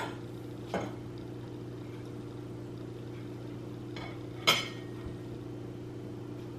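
Metal fork and knife clinking against a plate while cutting food: two sharp clinks, one about a second in and a louder one past four seconds in, over a steady low hum.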